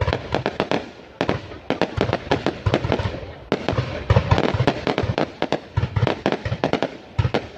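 Fireworks bursting in dense, overlapping volleys of bangs and crackles, with brief lulls between clusters.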